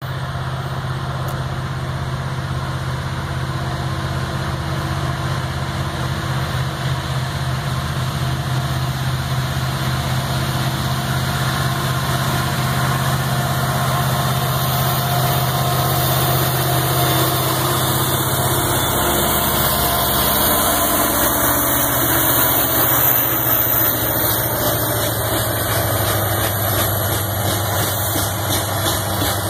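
Union Pacific diesel locomotive approaching with a steady low engine drone that grows louder and drops in pitch as it passes, about two-thirds of the way in. After that come the wheels of a train of rock-loaded work cars running over the rails.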